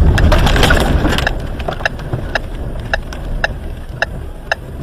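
Strong wind buffeting a stopped car, a heavy low rumble that is loudest in the first second or so and then eases. Even, sharp clicks about twice a second run through it.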